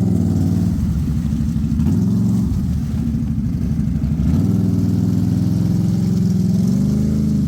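ATV engine running under throttle, revving up and easing off several times: a short climb at the start, another about two seconds in, and a longer rise from about four seconds in to near the end.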